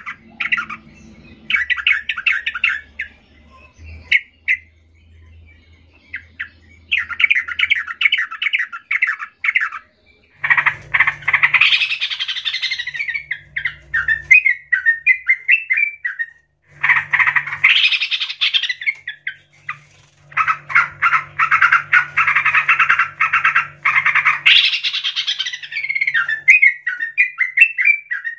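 Caged yellow-vented bulbuls calling in a worked-up, rival-seeking state: bouts of rapid chattering lasting a few seconds each, several followed by a run of short, quick notes.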